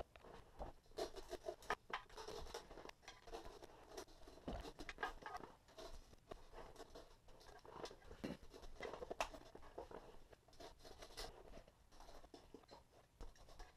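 A blade cutting through the stiff, four-layer fabric spider of a PSI Platform 3 18-inch subwoofer: faint, irregular scratching and crunching with small clicks and knocks against the speaker's basket.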